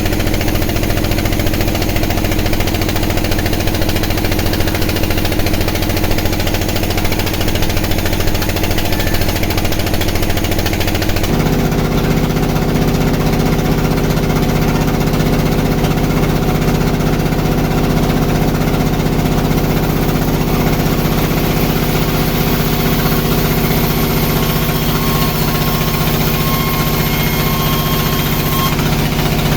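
Sawmill engine running steadily, with a knocking throb; about 11 seconds in its note shifts to a different, stronger pitch.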